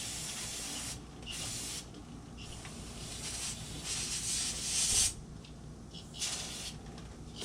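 Aerosol brake cleaner sprayed onto a dirt bike's throttle housing to clean it: a few short hissing bursts, then one longer burst of about two and a half seconds ending around five seconds in, then another short burst.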